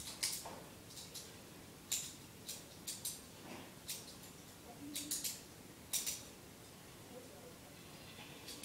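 About a dozen light clicks and ticks at irregular intervals over faint room noise.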